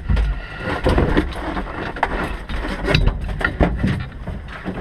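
Irregular knocks, scrapes and rustling inside the cabin of a crashed Citroën C2 rally car, over a low rumble, with no engine running. The sounds thin out and grow quieter near the end.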